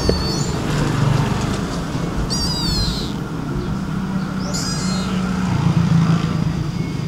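A young kitten mewing three times in short, high-pitched cries, the middle one falling in pitch, over a steady low hum.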